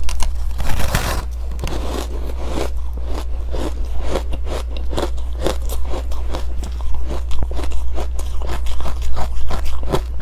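A person biting and chewing powdery ice coated in matcha powder: a long, dense crunch in the first second, then quick crunches several a second, over a steady low hum.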